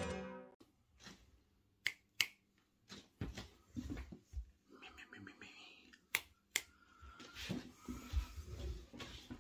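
Several sharp clicks and softer knocks with clothing rustle and low thumps, from someone moving about and handling things right next to the microphone.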